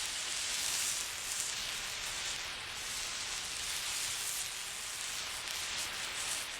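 Lit hand flare burning with a steady fizzing hiss, the hiss swelling and dipping slightly as the flare is moved.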